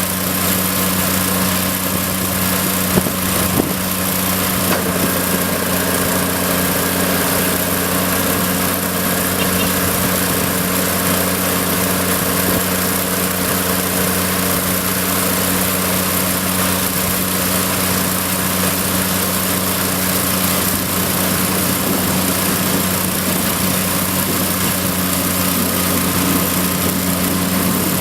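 Rice harvesting machine's engine running steadily at a constant speed, with a mechanical hum.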